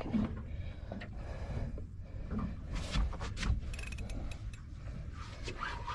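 Spinning fishing reel being worked as a shark is brought to the boat, its gears and mechanism clicking in quick runs, with a bunch of sharp clicks about halfway through, over a low steady rumble.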